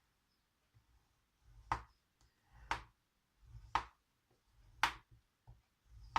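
Scoring tool drawn along a scoreboard groove through card in repeated light strokes: five strokes about a second apart, each a short scrape ending in a sharp click.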